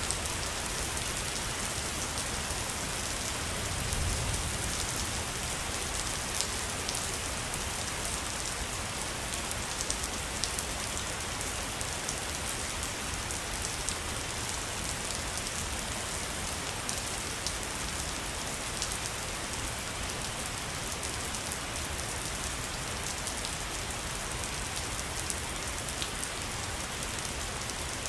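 Waterfall: steady rushing, splashing water with a fine crackle of droplets.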